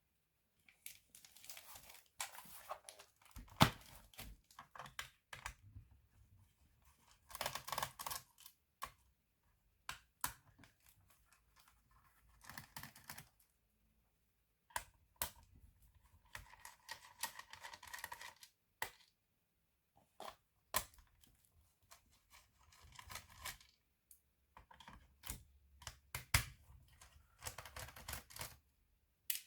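Hands working on a laptop's plastic case and parts: scattered sharp clicks and knocks, with several short stretches of scraping and rustling. The loudest click comes about three and a half seconds in.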